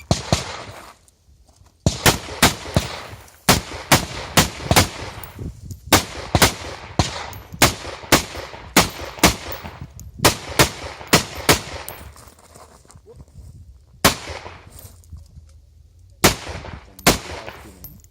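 Rifle fired in rapid pairs and short strings during a timed IPSC course of fire, about two dozen sharp shots with brief pauses between groups.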